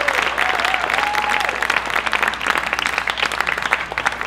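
Audience applauding at the end of a song, with a few voices calling out over the clapping in the first second or so; the clapping thins out near the end.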